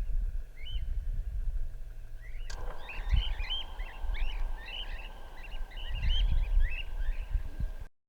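A flock of cockatiels and galahs calling: many short, arched chirps, sparse at first and then a dense, overlapping chatter from a couple of seconds in, over a low rumble. The calls stop shortly before the end, where the sound cuts out.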